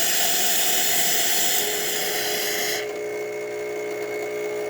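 Pasquini espresso machine hissing loudly from an open steam or hot-water outlet, cutting off sharply just under three seconds in. A steady machine hum sets in about halfway through and carries on.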